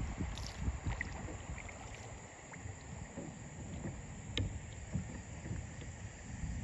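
Kayak being paddled on a river: uneven water noise from the strokes, with a sharp knock about four seconds in.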